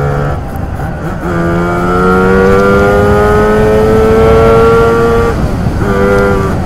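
Lambretta TargaTwin 275cc twin-cylinder two-stroke scooter engine pulling hard under acceleration, its note climbing slowly for about four seconds. The note breaks off briefly about a second in and again near the end.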